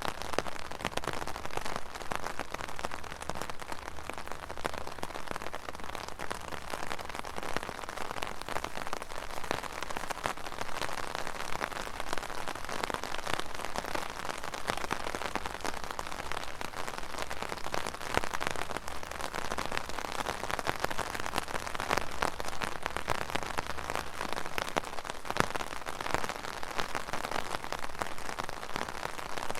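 Steady rainfall pattering on a surface, a dense even hiss with many separate drop ticks.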